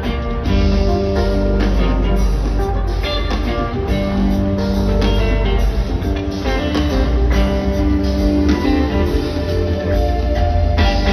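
Live rock band playing through a concert PA: electric guitars with held notes over bass and drums, at a steady, loud level.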